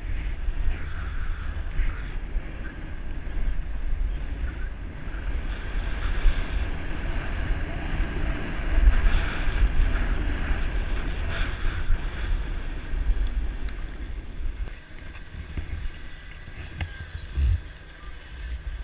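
Wind buffeting the microphone of an action camera carried downhill on a ski run, a deep rumble over the hiss of sliding on packed snow. It quietens about three-quarters of the way through as the descent slows, with a few light clicks near the end.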